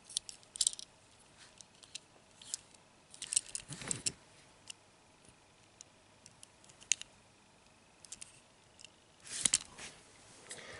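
Faint clicks and light rattles of a 1:64 diecast toy pickup being handled in the fingers, with a louder cluster of clicks as it is set down on the tabletop near the end.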